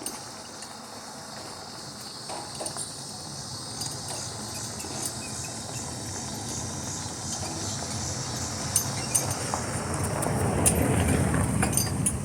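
A motor vehicle approaching and passing, growing louder through the second half and loudest near the end, over a steady chirring of insects, with scattered clicks.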